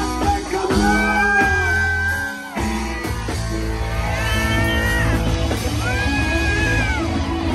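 Live rock band playing, with drum kit, bass and electric guitar, and long held notes over the top.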